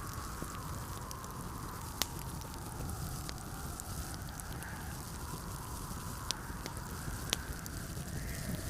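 Fireplace wood fire crackling, with a few sharp pops about two, six and seven seconds in. Underneath runs the steady rush of blizzard wind with a faint wavering whistle.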